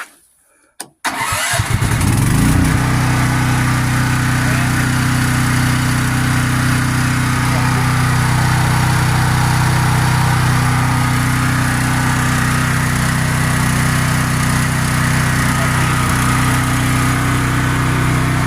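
A 10,000-watt gasoline generator's engine starting about a second in, picking up speed over a second or so, then running steadily.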